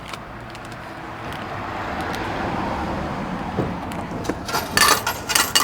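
A vehicle passing by, its noise swelling and then fading. Near the end comes a quick clatter of knocks and rustles as the vending machine drops the packaged stroopwafel.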